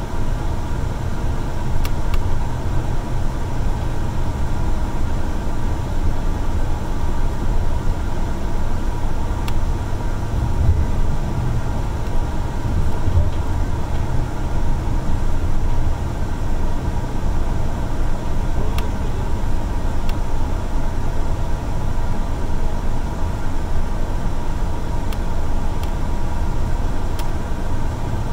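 City transit bus cruising at highway speed, heard from on board: a steady low engine drone and road noise, with a few faint ticks.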